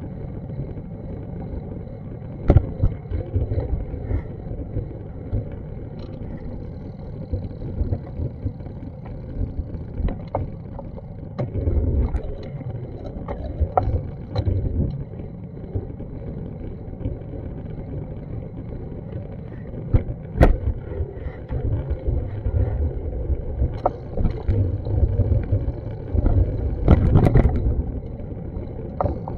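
Outdoor city street noise: a steady low rumble of traffic and wind on a small action camera's microphone, broken by a few sharp knocks.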